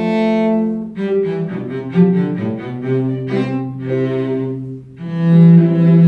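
Cello played with the bow, accompanied by piano: a phrase of sustained notes, with a brief break just before five seconds in and then a long low note.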